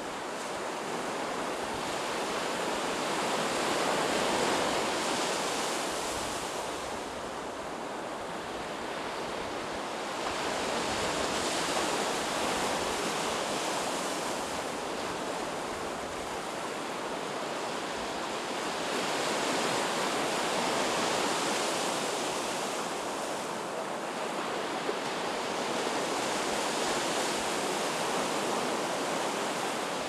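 Sea surf washing in over the shore: a steady rush of waves that swells and eases about every seven seconds.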